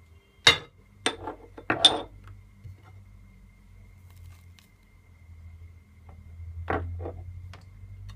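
Hard clicks and taps of a seasoning container being handled and knocked while spice is shaken onto raw chicken: three sharp knocks in the first two seconds and two more near the end, with quiet pauses between.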